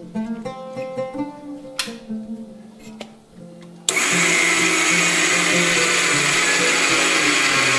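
Electric spice grinder switching on about four seconds in with a sudden, loud, steady whir as its blades grind dry toasted sesame seeds. Before it starts there is light guitar music and a couple of clicks.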